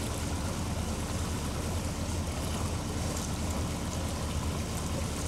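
Motor cruiser's engine running at low speed with a steady low hum, over a steady rush of water.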